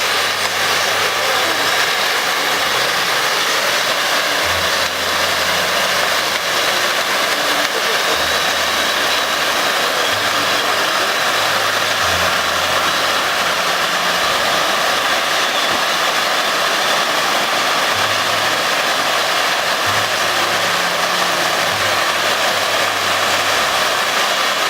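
Pyrotechnic fountains of a firefall effect burning with a steady, loud spraying hiss that does not let up. Underneath, low tones hold and step to a new pitch every second or two.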